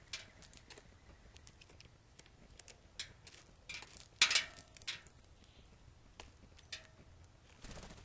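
Blue jay picking at seed on a wooden platform feeder: irregular sharp taps and clicks of its bill on the tray, the loudest cluster about four seconds in. A brief flutter of wings near the end as it flies off.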